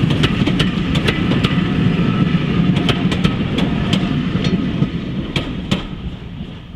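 A steam-hauled train rolling past: a steady rumble of wheels on the rails with many sharp, irregular clicks and knocks, fading over the last couple of seconds as it moves away.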